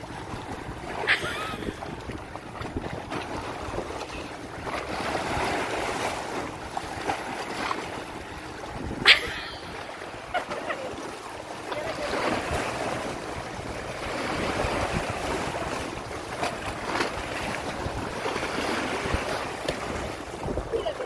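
Small waves lapping and washing against rocks and the submerged steps, swelling and easing every few seconds. Two sharp clicks cut through, about a second in and about nine seconds in.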